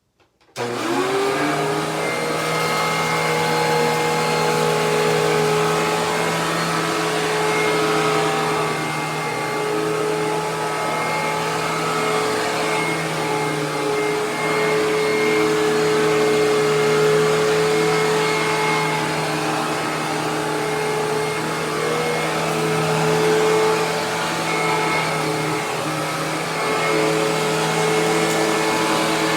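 Hoover WindTunnel TwinChamber upright vacuum cleaner switched on about half a second in, its motor spinning up and then running loud and steady. The loudness is what the owner presents as a problem that needs fixing.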